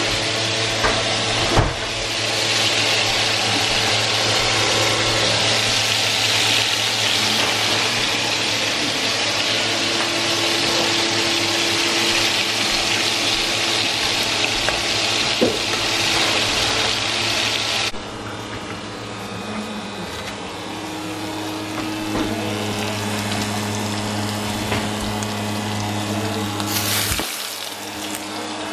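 Food sizzling and frying in skillets on a stovetop, a dense steady sizzle that drops off sharply to a quieter one about eighteen seconds in, over a steady low hum.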